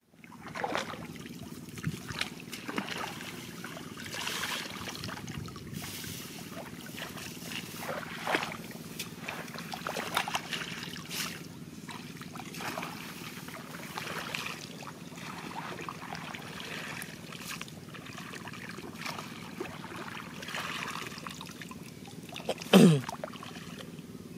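Shallow muddy water splashing and sloshing in irregular bursts as hands and feet work through a flooded rice field. Near the end comes one brief, loud sound that falls in pitch.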